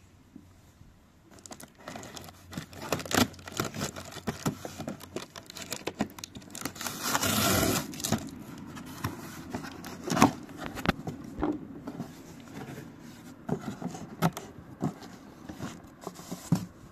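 A cardboard box being opened by hand: packing tape slit along the seam and the flaps and cardboard insert handled, with many sharp knocks and scrapes and a longer tearing noise about seven seconds in.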